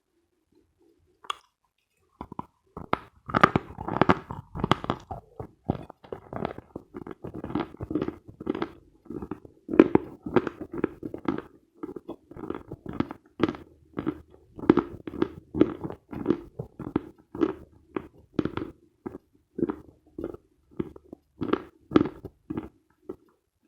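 A person biting and chewing Khrapovsky chalk: a single crunch about a second in, then steady crunchy chewing at roughly two chews a second.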